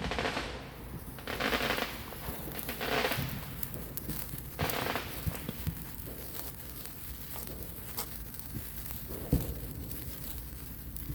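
Small consumer fireworks going off: four short fizzing hisses about one and a half seconds apart, then scattered sharp crackling pops.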